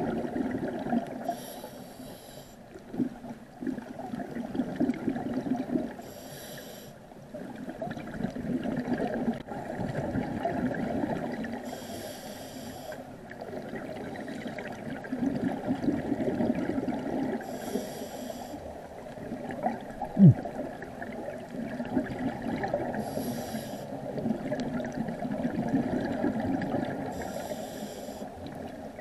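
Scuba diver breathing through a regulator underwater: a short hiss of inhalation about every five to six seconds, with the gurgle of exhaled bubbles in between. A single short low thump about two-thirds of the way through is the loudest moment.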